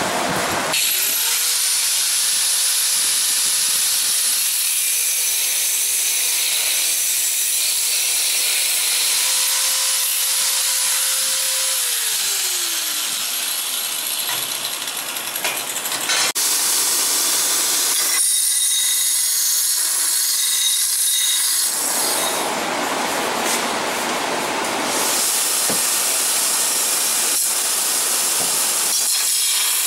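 Angle grinder with an abrasive disc grinding square steel tube: a harsh grinding noise over a motor whine that dips and slides down in pitch partway through. In the later part, a belt grinder sands the end of the steel tube.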